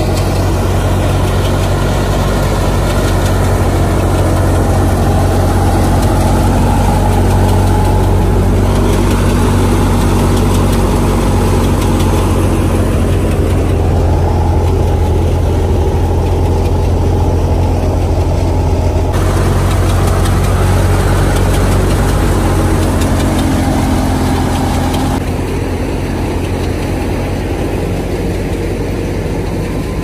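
Tractor-driven wheat thresher running steadily, a loud low engine drone with the clatter of the threshing machine over it. It is slightly quieter near the end.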